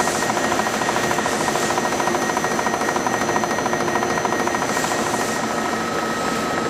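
Corner mill in a square-hole holder cutting a 10 mm square hole dry into S50C carbon steel, the spindle turning at 200 rpm: a steady, rapidly pulsing grinding of the cutter biting the steel, with a steady high whine over it.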